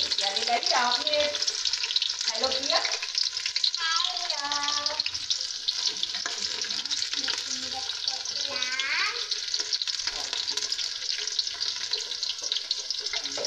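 Sliced onions sizzling steadily in hot oil in a metal pot, stirred now and then with a steel ladle as they fry toward brown for a curry base.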